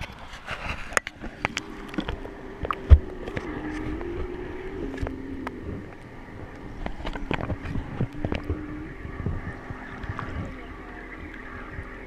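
Camera handling noise: rubbing and irregular knocks on the microphone, with one hard thump about three seconds in, over a steady wavering motor drone.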